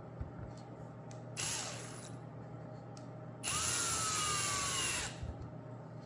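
Power drill run twice, most likely boring the holes for the button tabs in the frame's wooden back: first a brief spin whose whine falls away, then a louder run of about a second and a half whose whine sags slowly before it stops.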